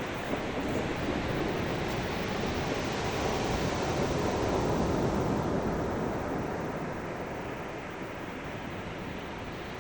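Ocean waves surging and washing on the shore, swelling to a peak about halfway through and then easing off.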